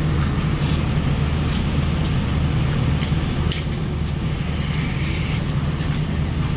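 Diesel engine of a standing passenger train idling with a steady low hum, with a few faint clicks over it.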